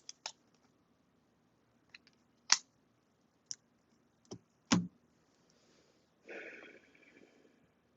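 Reading cards handled on a table: scattered sharp clicks and taps as cards are picked up and set down, then a short rustle about six seconds in as cards slide or shuffle.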